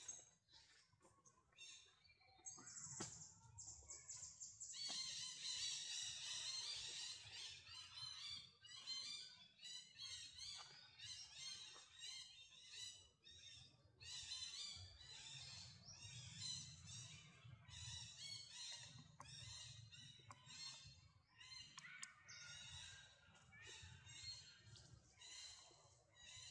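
Baby macaque squealing and screeching in rapid, repeated high-pitched calls, starting about two seconds in and going on almost without a break.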